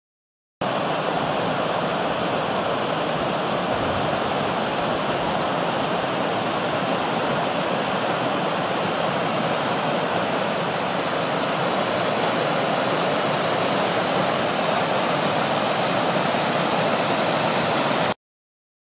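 Rushing water of a mountain creek cascading over rocks: a steady, even rush that starts abruptly about half a second in and cuts off abruptly near the end.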